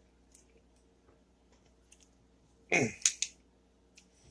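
Small clicks from handling a cap-and-ball revolver while loading it, with a short cluster about three seconds in: a brief scrape dropping in pitch, then two sharp clicks.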